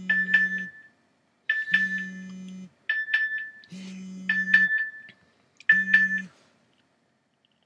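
A short electronic tone sequence, a higher ringing tone with clicks over a low steady hum, heard five times about a second apart, then silence.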